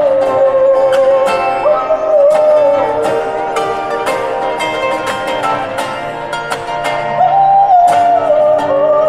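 Live acoustic duo playing through a PA: ukulele and guitar strumming and picking chords, with a voice singing long held notes over them.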